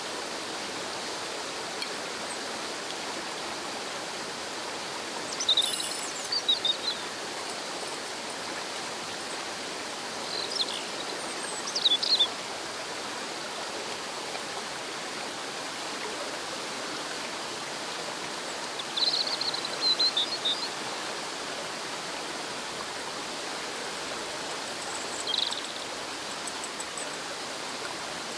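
Steady rush of a shallow river flowing over rocks, a sound like rain. Several short, high bird chirps come through it now and then.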